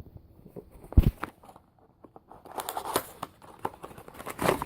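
Plastic packaging crinkling as a part is taken out of its bag, with one sharp knock about a second in.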